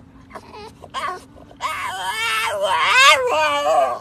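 French bulldog making a high-pitched squeaky whine: a short squeak about a second in, then a long wavering squeal that rises and falls in pitch.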